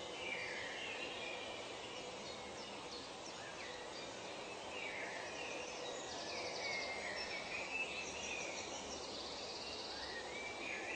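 Forest ambience: several birds calling and singing over a steady background hiss, with short rapid high trills a little past the middle.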